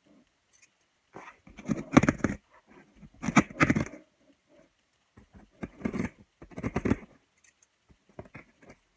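A taped cardboard shipping box being opened: packing tape pulled and torn from the top seam, with the cardboard handled, in about four loud bursts separated by short quiet spells.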